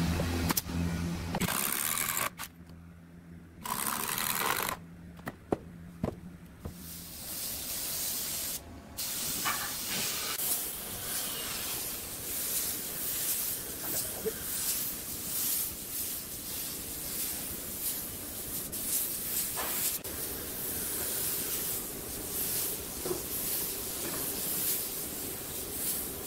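Spray gun hissing as it sprays wood finish onto a wooden column casing, the hiss rising and dipping with the passes. A low hum sounds in the first several seconds, broken by short cuts.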